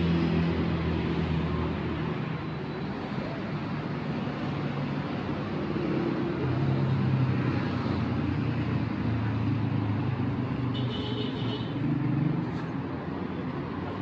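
Street traffic: motor vehicles passing with engines running, their hum swelling and fading over a steady city din. A brief high-pitched tone sounds about three quarters of the way through.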